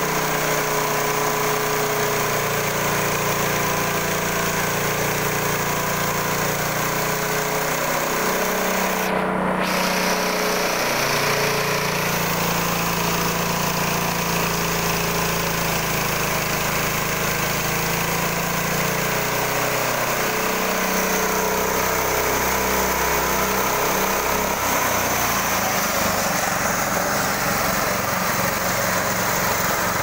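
Homemade sawmill running under load as it saws a Bayur log lengthwise into planks: a steady engine drone with the noise of the blade cutting wood. The engine's pitch shifts and wavers about twenty seconds in.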